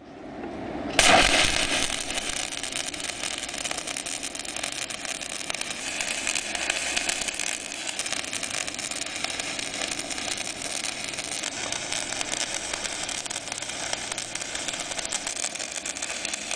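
Welding: a dense, crackling hiss starts abruptly about a second in, loudest at the strike, then carries on steadily.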